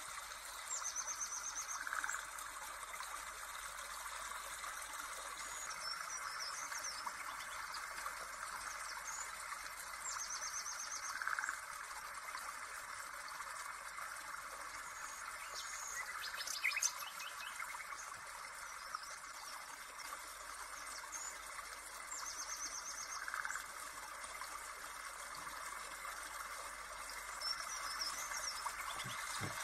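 Nature-sound background track: birds chirping and trilling over a steady rush like running water. The same short trill and chirp recur three times.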